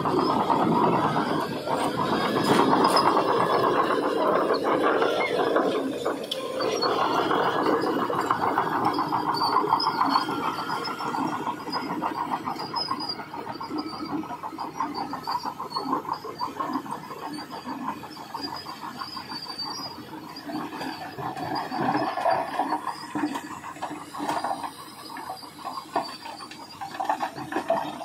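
Heavy earthmoving machinery at work, giving a continuous rough mechanical noise that is louder for the first ten seconds or so and then eases off.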